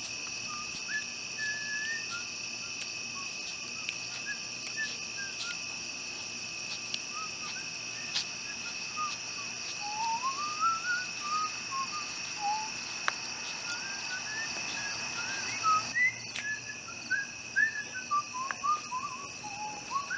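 A steady, high-pitched trilling of night crickets, with short chirping bird calls scattered over it and a few faint clicks.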